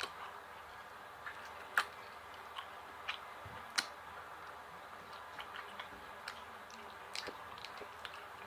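A person eating fried chicken close to the microphone: scattered, irregular sharp clicks and smacks of chewing over a faint steady hiss.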